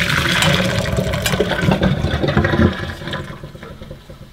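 Hot frying fat poured from a pan through a wire-mesh strainer into a stainless steel sink, a steady rush of pouring liquid that tapers off about three seconds in.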